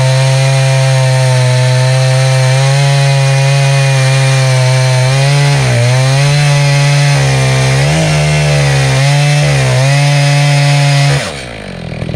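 Echo CS-590 Timber Wolf two-stroke chainsaw at full throttle under load, ripping lengthwise through a cedar log as it mills boards. The engine pitch sags briefly a few times as the chain bogs in the cut, and near the end the throttle is let off and the revs drop.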